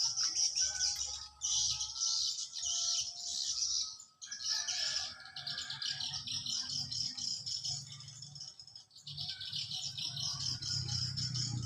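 Birds chirping and twittering in a dense, continuous high-pitched chorus, dipping briefly about four and nine seconds in, with some low rumble near the end.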